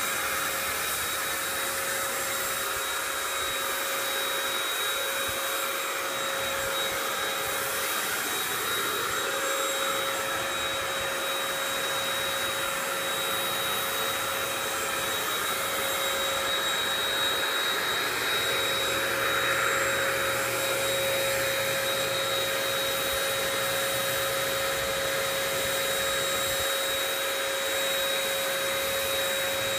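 HVLP turbine paint sprayer running steadily while spraying Plasti Dip: a constant whine over a rush of air.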